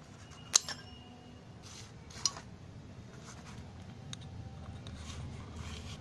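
Two sharp metallic snaps about a second and a half apart, from cutting pliers snipping thin wire, each with a brief high ring, then light rustling of hands on cardboard.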